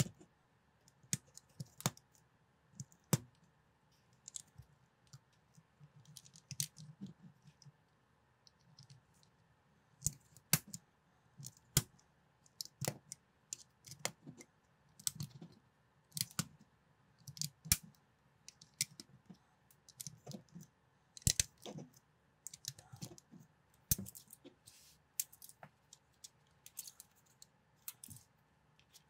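Plastic LEGO-compatible building bricks clicking as they are pressed onto a model and handled: sharp, irregular clicks, one or two a second, with soft rustling of fingers on plastic between them.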